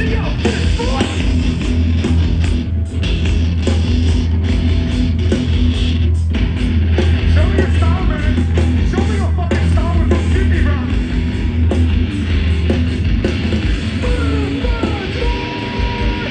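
Hardcore band playing live and loud: electric guitar, bass and drums pounding out a heavy riff.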